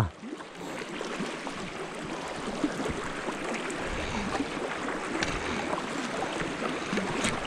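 Steady rush of flowing creek water, with a few faint short ticks over it.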